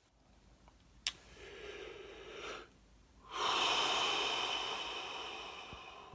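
A man with hiccups breathing noisily: a short click about a second in, a soft breath, then a longer, louder breath that fades away over about three seconds.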